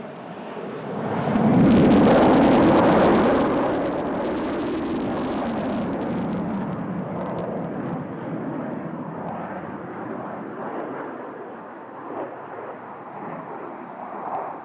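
Sukhoi PAK-FA jet fighter's engines: a noisy jet roar that swells quickly to its loudest about two seconds in as the aircraft passes, then falls back to a long rumble that slowly fades.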